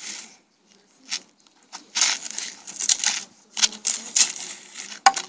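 Plastic toy shovel scraping and scooping sand and tipping it into a plastic toy dump truck's bed, in short gritty bursts about once a second with quiet gaps between.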